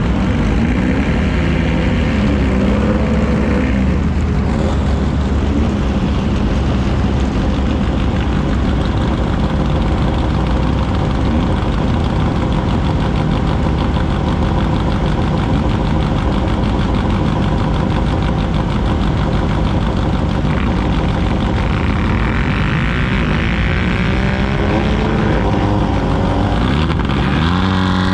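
Car engine running loud and steady, its pitch gliding up and down in the first few seconds and again near the end.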